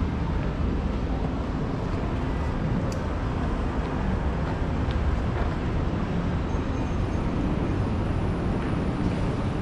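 Steady city street ambience: a constant low rumble of road traffic, with one brief faint click about three seconds in.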